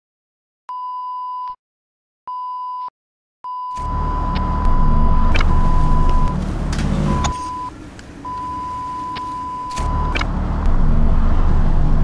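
Channel intro sound effect: a steady test-pattern beep tone sounds twice briefly, then comes on a third time and holds with short breaks. From about four seconds in it is joined by a loud, deep, noisy rumble that eases for about two seconds midway and then returns.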